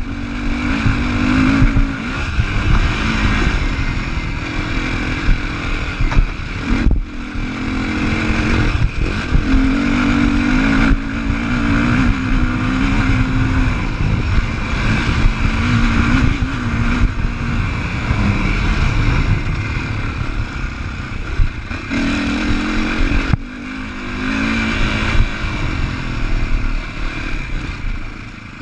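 2015 Sherco 450 SEF-R enduro motorcycle's single-cylinder four-stroke engine pulling along a dirt trail, the revs rising and falling with the throttle. Twice the throttle shuts off for a moment before the engine pulls again.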